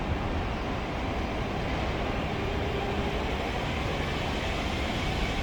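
Steady low rumble of a container freight train hauled by an EF210 electric locomotive, with a faint short whine about halfway through.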